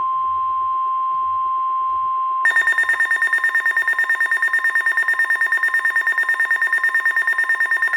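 NOAA Weather Radio's 1050 Hz warning alarm tone, one loud steady note. About two and a half seconds in, a loud rapidly pulsing alarm beep, about eight pulses a second, starts over it and runs on with it, heralding a new severe weather warning.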